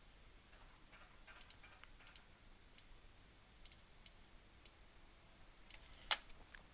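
Faint, scattered clicks of a computer mouse and keyboard at the desk, a loose cluster in the first few seconds and one sharper click about six seconds in, over near silence.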